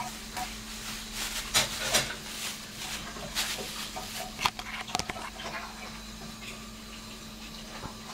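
A plastic bag crinkling and rustling in irregular bursts as a kitten paws and bats at it, busiest in the first half. A steady low hum runs underneath.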